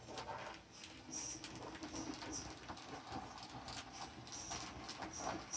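HO scale 2-4-0 model steam locomotive, remotored with a CD-drive motor and brass flywheel, running along the track: a faint motor hum under irregular clicking and rattling of the wheels and the log car on the rails.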